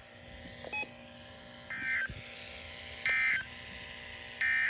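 Three short bursts of raspy digital data tone, about a second apart, over a faint steady hum: the EAS/SAME end-of-message signal on NOAA Weather Radio, closing the severe thunderstorm warning.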